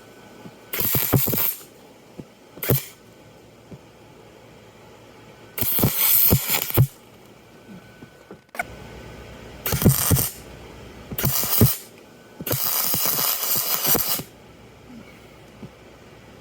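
Arc welding on a cast aluminum engine case, laying new aluminum over a hole, in about six short bursts of crackling hiss, each up to about a second and a half long, with quiet gaps between. Spatter is thrown during the welding.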